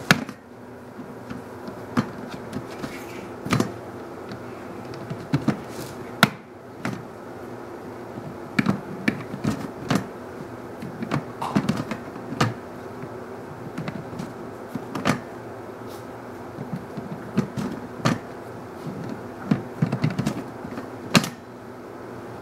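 Plastic storage tote lid, with a steel bowl sitting on it, knocking and clacking in irregular sharp knocks as a cat pries it up with its head and paws and lets it fall back. The loudest knocks come about 6 s and 21 s in, over a steady low hum.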